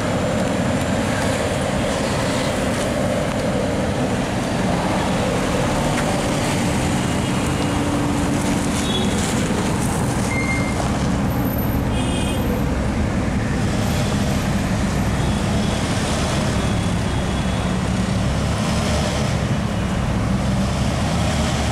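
Car engines idling and moving off slowly, a steady low rumble mixed with street traffic noise.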